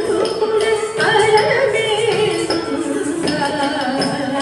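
Recorded Carnatic (South Indian classical) song accompanying a Kuchipudi dance: a gliding sung melody over regular percussion strokes.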